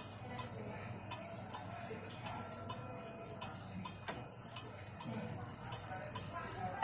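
Junghans wall clock movement ticking steadily, between two and three ticks a second.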